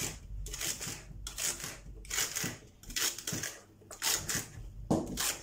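Kitchen knife slicing through a bundle of raw celery sticks onto a wooden chopping board: a crisp crunch with each cut, repeated unevenly about two to three times a second.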